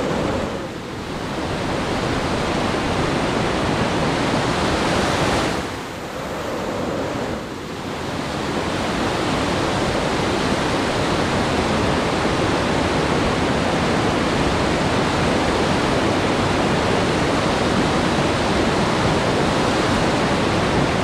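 Class IV whitewater rapid rushing over boulders close by, a loud steady wash of water noise. The level dips briefly about a second in and again between about six and eight seconds.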